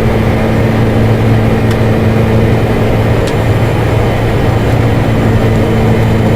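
Steady, loud flight-deck noise in a Boeing 747-400 cockpit: a constant low hum from the engines and aircraft systems under a rush of air, with a couple of faint ticks.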